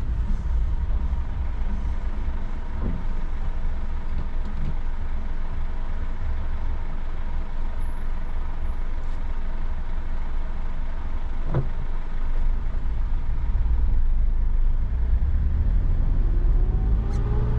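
Steady road and engine rumble inside a moving car on a wet road. Near the end a rising whine comes in as the car picks up speed.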